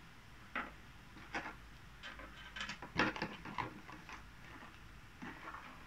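Scattered light clicks and rustles of small items being handled: the microphone's accessories and packaging being picked up and set down during unboxing. A small cluster of clicks comes about three seconds in.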